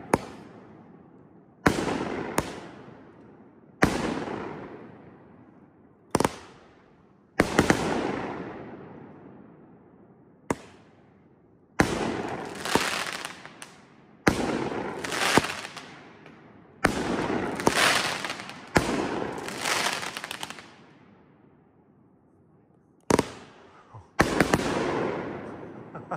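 A Kripton (Pyro Diablo) Green Mamba 21-shot fan cake firing a string of sharp shots at irregular intervals, each followed by a long fading tail. Near the end there is a lull of about two seconds before a final few shots.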